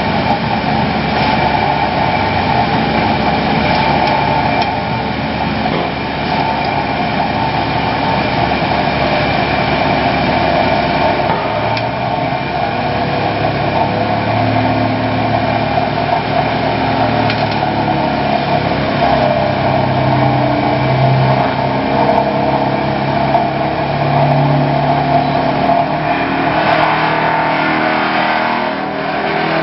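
Daedong DTVH700T telescopic vibratory pile hammer running on a Volvo 360 excavator, driving steel sheet piles. The hammer's vibration makes a dense, continuous buzz over the excavator's diesel engine working under load, whose lower tones shift up and down in pitch from about halfway through.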